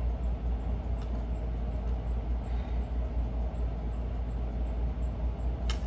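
Steady low rumble with hiss, a faint high tick repeating about three times a second, and one sharp click near the end.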